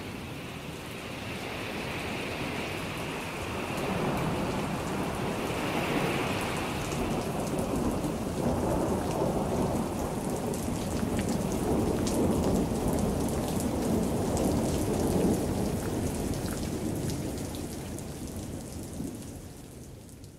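Steady rain with rumbling thunder, fading out near the end.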